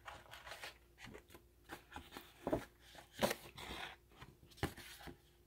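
Stiff painted paper pages rustling and crackling as they are handled and sewn together with needle and thread, with a few sharper crackles spread through.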